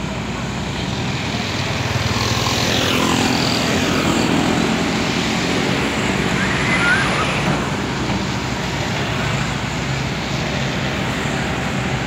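Caterpillar 320D excavator's diesel engine running steadily as it works, with road traffic passing close by, including motorbikes.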